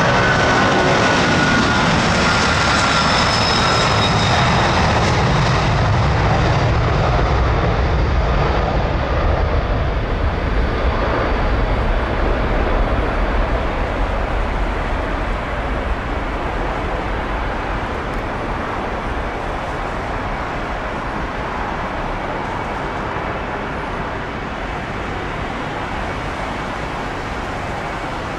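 Boeing 747-400 taking off, its four Rolls-Royce RB211 engines at takeoff power. A loud jet roar with a falling whine as it passes, then a heavy low rumble that slowly fades as it recedes.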